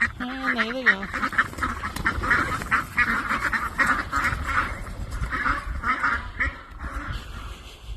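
Ducks quacking in a rapid, continuous chatter, with a short wavering call in the first second.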